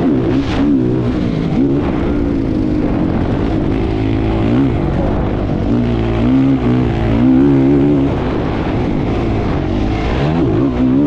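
Racing engine running hard at close range, its pitch rising and falling quickly with throttle and gear changes.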